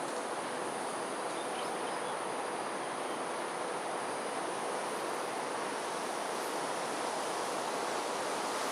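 Gusty wind blowing outdoors, a steady, even hiss with no distinct events.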